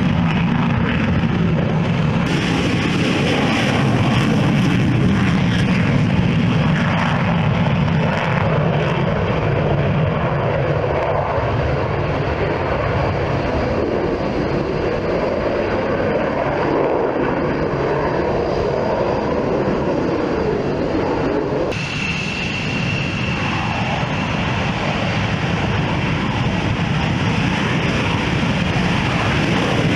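Fighter jet engines running at takeoff power: a continuous jet engine sound as a Eurofighter Typhoon takes off. About two-thirds of the way through, the sound changes abruptly to another jet, an F-16 on its takeoff roll, with a brief high whine.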